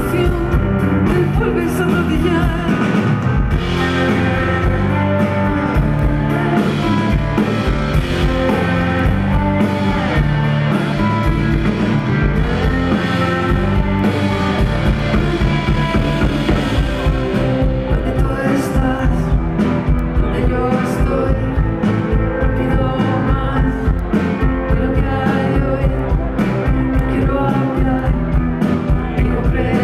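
Live rock band playing: a drum kit keeps a steady beat under keyboards, with a singing voice.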